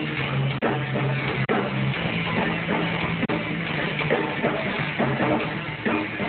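Live rock band playing: distorted electric guitar over bass and a drum kit.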